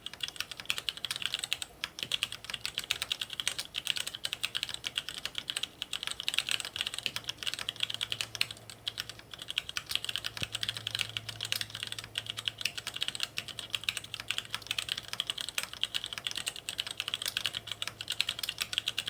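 Touch typing on an Infinity ErgoDox mechanical keyboard with Gateron Red linear switches: a fast, continuous run of key clacks, broken by a few brief pauses.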